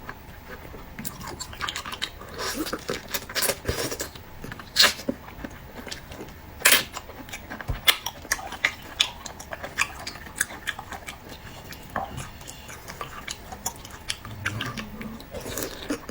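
Close-miked eating sounds: chewing and mouth smacking with irregular sharp clicks and crackles, the loudest about five and seven seconds in.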